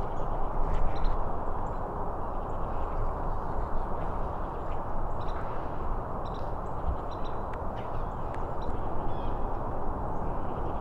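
Outdoor ambience: birds calling now and then in short, high calls over a steady low rushing background.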